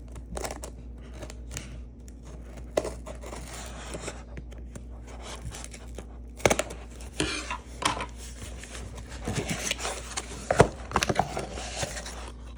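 A subscription box being opened and unpacked by hand: cutting, tearing and crinkling of packaging, with scattered knocks and clicks, the sharpest about six and a half and ten and a half seconds in.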